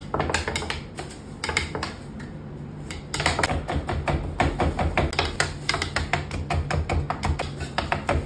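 Knife chopping parsley and red peppers on a cutting board: quick, sharp taps of the blade on the board, scattered at first, then after a short lull a steady fast run of about four to five strokes a second. Background music plays underneath.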